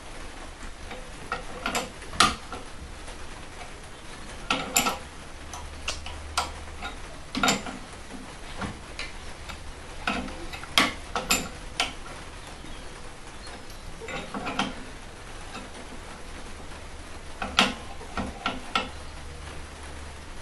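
Irregular metallic clicks and taps from a spanner and a steel threaded-rod rig being adjusted by hand as the load is wound up toward 15 lb. They come in small clusters every couple of seconds.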